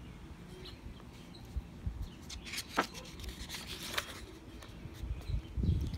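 Quiet paper rustling and handling as a picture book's page is turned, with a few soft clicks and rubs.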